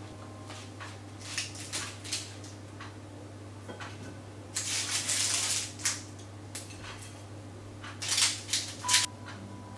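A metal spatula scraping and sliding under pastries on a parchment-lined baking tray, with rustling paper and light clinks against a plate. There is a longer scrape about halfway through and a few sharp knocks near the end.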